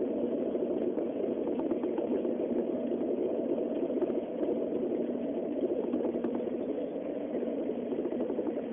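Steady running noise inside a Shinkansen passenger car at high speed: a continuous rumble with faint scattered ticks.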